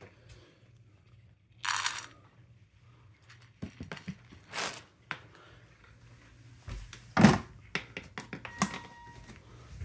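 Plastic pet-food bins handled and dry kibble scooped out with a plastic spoon: a few short rattling, rustling bursts and scattered clicks, the loudest a thump about seven seconds in.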